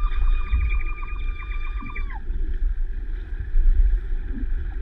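Muffled underwater rumble of pool water churning around a submerged action camera. A high steady tone with a slight warble sounds over it for about the first two seconds, then drops away.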